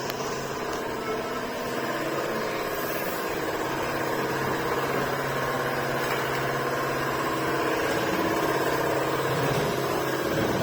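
Wide-belt calibrating sander (SCM Sandya 600) running with a steady mechanical hum.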